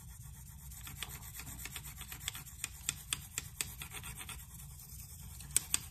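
A 1500-grit diamond plate on a KME guided sharpener stroked across an AUS-10 steel knife edge: faint rubbing scrapes with many small irregular ticks, a few sharper ones near the end. The strokes are raising and flipping the burr along the edge, with more work at the heel.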